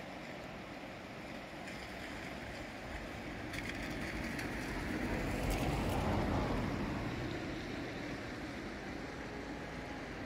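A swollen, fast-flowing river rushing steadily, with a louder low rumble swelling and fading through the middle.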